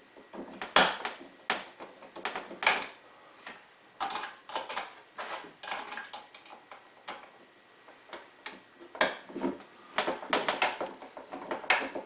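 Screwdriver turning the mounting screws of a single-pole light switch into a plastic electrical box. Irregular small clicks and scrapes as the screws turn and the switch's metal strap settles against the box.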